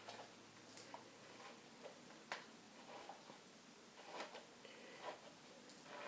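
Near silence, with a few faint ticks and soft rustles from fingers pressing and smoothing gel-sticky hair along the hairline.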